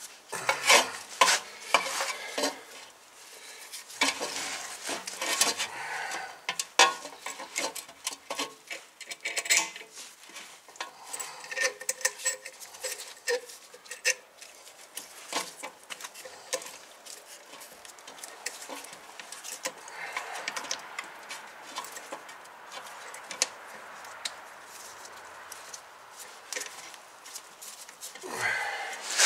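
Irregular metallic clicks, clinks and scraping as a brake caliper piston wind-back tool is worked against the piston of a Toyota Corolla rear brake caliper, turning the piston back into its bore.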